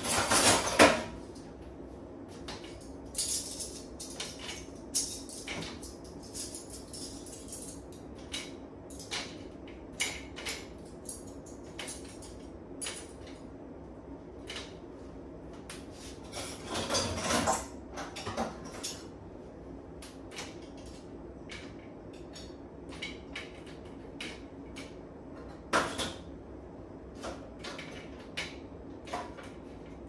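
Dishes and cutlery clinking and clattering as they are handled in an open dishwasher's racks and cutlery tray: scattered knocks, with a loud burst right at the start and a busier cluster about halfway through.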